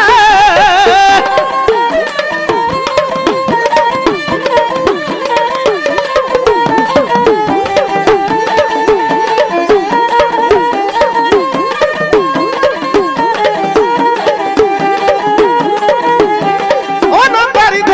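Dhadi folk music: a sarangi plays a stepping melody over fast, continuous beats of dhadd hourglass drums.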